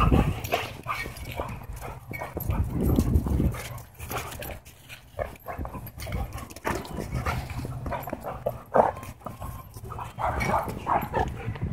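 German Shepherds and a German Shorthaired Pointer in rough play, vocalising in uneven bursts as they wrestle and chase, with several short, sharper cries in the last few seconds.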